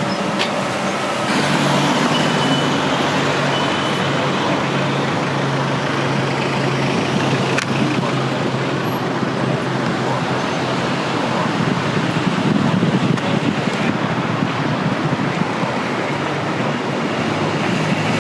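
Motor vehicle road noise: a steady rumble of engine and traffic, with a low hum that comes in about a second in.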